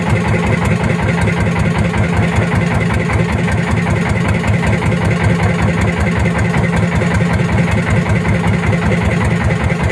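Boat engine running steadily at low speed, with an even, rapid throb.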